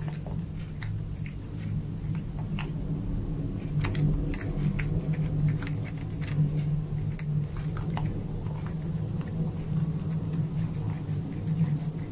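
Close-miked domestic cat chewing crunchy crumbs, giving irregular crunches and bites over a steady low hum.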